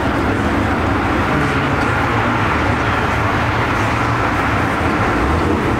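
Steady rumble of car engines running, with traffic noise and no break or change.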